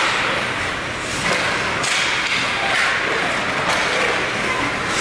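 Ice hockey play: skate blades scraping and carving the ice, with a few sharp clacks of sticks on the puck.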